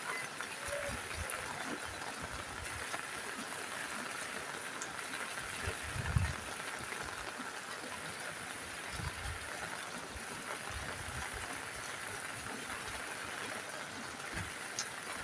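Steady rain falling on a roof: an even hiss with scattered soft low thuds of heavier drops, one a little louder about six seconds in.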